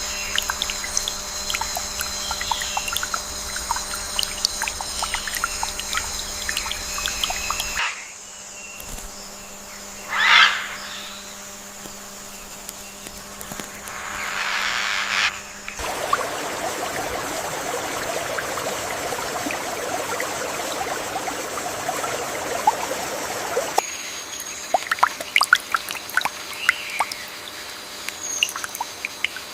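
Rainforest ambience made of separate recordings that cut abruptly from one to the next about every eight seconds: steady animal drones with many clicks, a stretch of trickling water, and scattered short animal calls and chirps. Two short loud swelling sounds come about ten and fifteen seconds in.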